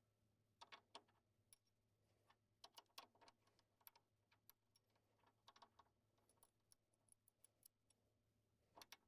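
Faint, irregular metallic clicks and taps of stripper bolts and auxiliary grips being handled and fitted into a threading machine's vise jaws.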